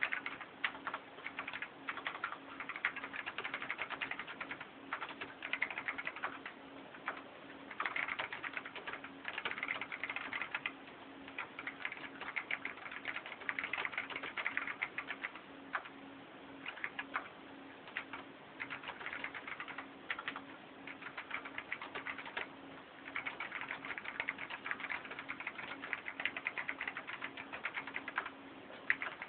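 Fast typing on a Dell AT101W mechanical keyboard with Alps key switches: dense runs of key clicks broken by short pauses.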